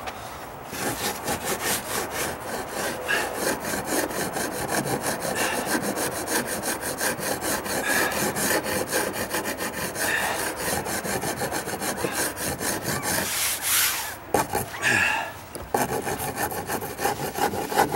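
Hand rasp filing the weathered wooden edge of a deck stair in quick back-and-forth strokes, a few a second, with a brief pause near the end. The rasp is smoothing down a gouge in the old wood.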